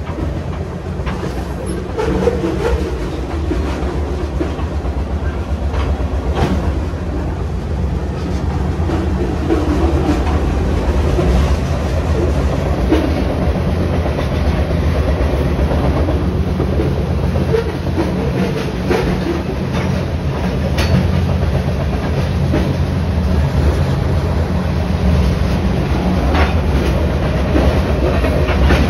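Moving freight train heard from the end platform of a rolling car: a steady low rumble of steel wheels on rail with clickety-clack and rattling, and a few sharp clanks.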